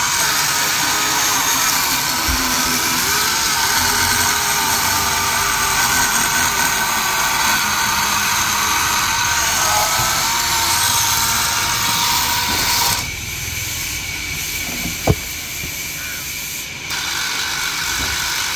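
Corded electric chainsaw running and cutting through a pine trunk, a steady motor whine with the chain chewing through the wood. About thirteen seconds in it eases off for a few seconds, with a single sharp knock in that lull. It picks up again near the end.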